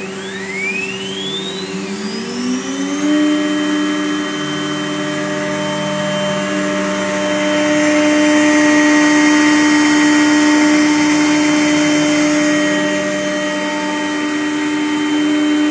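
A MultiCam CNC router's 10 HP Colombo spindle spins up with a rising whine that levels off after about three seconds into a steady 18,000 RPM whine. The router bit then cuts a square into plastic sheet, the cutting noise growing louder in the middle.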